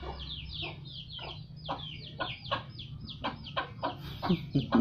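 Chickens calling over and over, a quick run of short, high, falling calls about three a second, with a low steady hum underneath.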